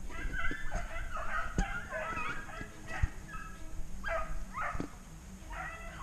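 A pack of rabbit hounds baying and yelping together in overlapping bursts, the sound of dogs running a rabbit's trail. A few sharp knocks cut in, the loudest about three seconds in.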